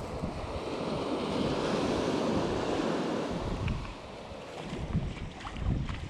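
A wave washing in on the shore, swelling and then easing off, with wind buffeting the microphone.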